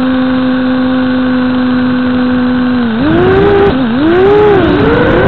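The brushless motors and propellers of a small FPV drone spin up as it is armed and settle into a steady idle whine. About three seconds in, the pitch swoops up and down as the throttle is worked for take-off.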